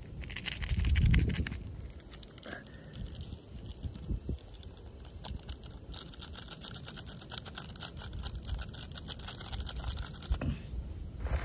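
Plastic food packaging being handled: irregular crinkling and rustling that gets denser in the second half, with a brief low rumble about a second in.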